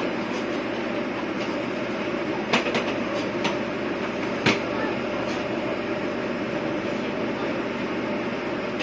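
Diesel railcar running along the line with a steady rumble and a few sharp clicks around the middle.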